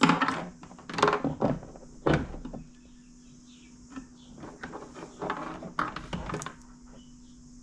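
Hands handling a cable and its rubber cable gland on a kayak: a few sharp knocks and scrapes in the first two seconds, then a cluster of rubbing knocks later on.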